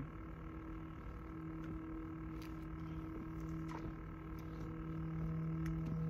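Steady low hum of a distant motor, with a few faint, short high chirps over it.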